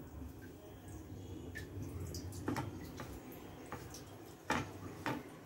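A hand stirring dry flour on a plate: faint rubbing with a few light clicks, about two and a half seconds in and twice near the end.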